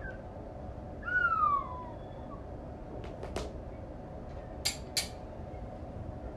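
Home-made Foley effects: a squeaky falling whine, then a couple of light clicks and two sharp knocks about a third of a second apart near the end, standing in for hammering a propeller into place.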